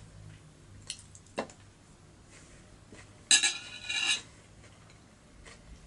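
Cutlery on a plate: two light clicks, then a loud scrape with a ringing tone lasting about a second, about three seconds in.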